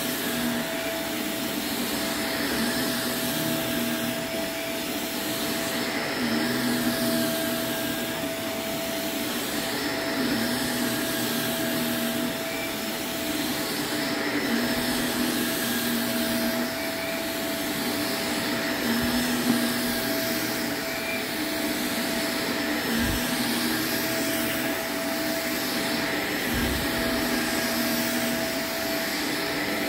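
Shark upright vacuum cleaner running steadily while it is pushed back and forth over a thick rug. Its motor hum carries a steady tone, and a lower tone comes and goes every couple of seconds with the strokes.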